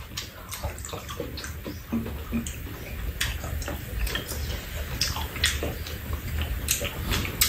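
Eating sounds at a low table: metal spoons clicking and scraping against bowls and a pan, with wet chewing, over a steady hiss of rain falling outside.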